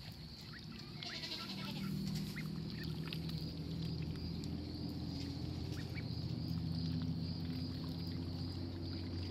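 Young ducks and ducklings swimming in a water tank, giving short scattered peeps and quacks, with a cluster of calls about a second in. Under them run a steady high-pitched chirring drone and a low steady hum that swells about a second and a half in and is the loudest sound.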